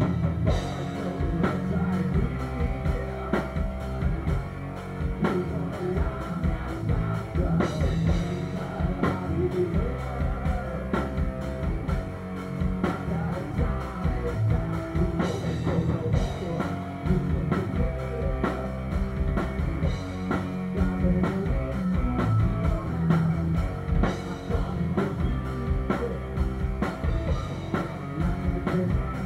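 Live rock band playing at full volume: a drum kit keeping a steady beat with cymbal crashes, electric guitar and a singer on vocals.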